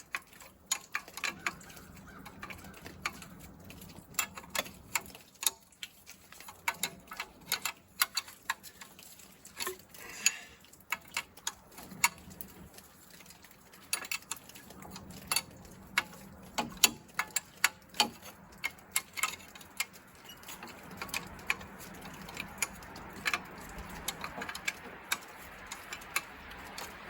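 Irregular sharp metallic clicks and taps of a wrench working the injector line nuts on a 1963 Case 310F bulldozer's diesel engine, as the lines are cracked open to bleed air out of the fuel system. A soft steady hiss builds in the last several seconds.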